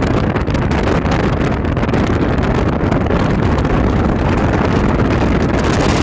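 Wind buffeting the microphone of a camera held at the side window of a moving car, over steady road and engine noise, loud and unbroken.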